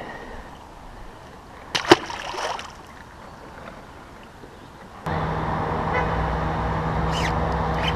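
A short splash about two seconds in as a released largemouth bass drops back into the water. About five seconds in, a motor on the boat starts up and runs with a steady hum.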